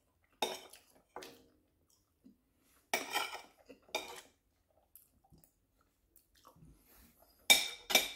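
Fork and spoon clinking and scraping against plates, with chewing: a handful of short sharp clinks scattered through, the loudest two close together near the end.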